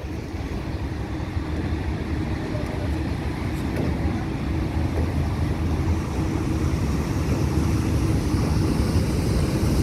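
Inland pushboat's diesel engines running under load: a steady low drone with a held hum, growing gradually louder as the boat comes closer, over the churn of its propeller wash.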